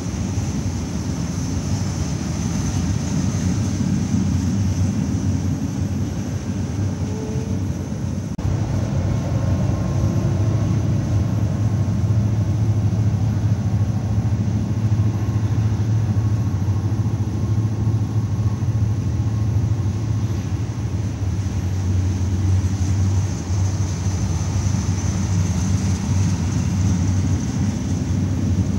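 Steady low rumble of a freight train's diesel locomotive, its deep hum growing stronger about a third of the way in, with a steady high hiss over it.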